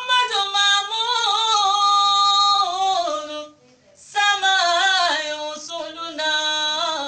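A woman singing unaccompanied: two long held phrases with wavering, ornamented notes. The first breaks off about three and a half seconds in, and the second begins half a second later.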